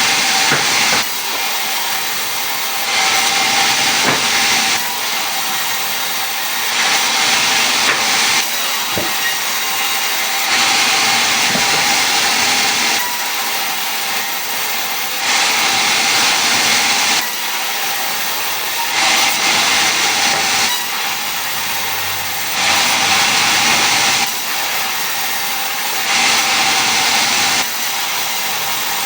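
Power woodworking tool running steadily with a faint whine, its hissing noise swelling louder every few seconds as it cuts into wood in repeated passes.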